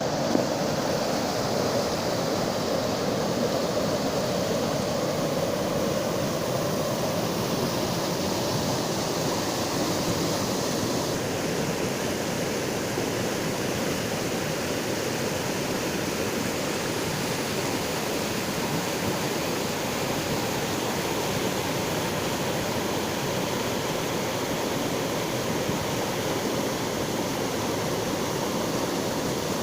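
Small river waterfall on the Tohmajoki (Akhinkoski falls): water pouring over rocks, rushing steadily with no break.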